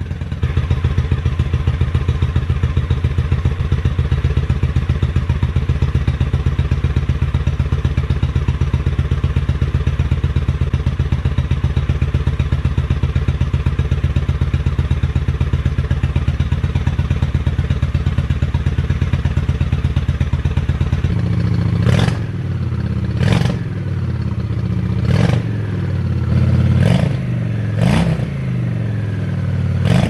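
Honda Shadow Spirit 750's V-twin engine running on freshly rebuilt carburetors, idling with an even beat. About 21 seconds in the note rises and the throttle is blipped several times in short revs that fall back each time. The owner says it sounds a lot better, maybe a little bit rich.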